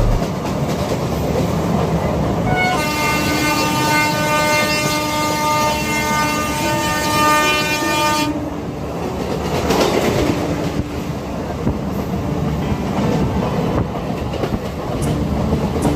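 Train horn sounding in long steady blasts over the rumble of the moving train, heard from a seat inside: a short blast, then a longer one that stops about eight seconds in. After that the train runs on with its wheels clattering over the rail joints.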